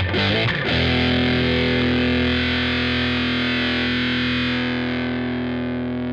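Electric guitar through a Killer Otter Electric Party Animal fuzz pedal: a quick run of fuzzed notes, then one note held and sustaining, slowly fading and losing its treble toward the end.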